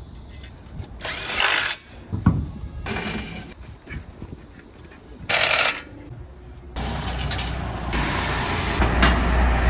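Backhoe loader running as it is driven into a steel shipping container: a deep engine rumble that grows louder in the second half, with several short loud bursts of noise and metallic clatter.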